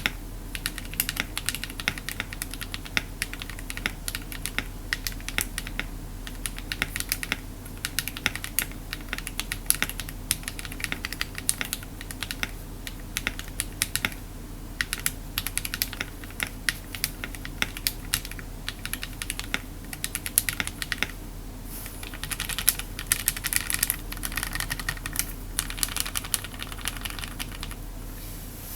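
Typing on a mechanical keyboard with lubed Akko Matcha linear switches (Krytox 205G0) in an aluminium case and plate: a fast, steady stream of keystrokes with a few brief pauses.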